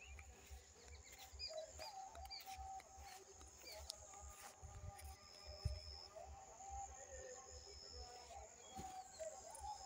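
Faint outdoor ambience: distant singing or music from a village loudspeaker drifting across the fields, with a low rumble of wind and handling on the microphone.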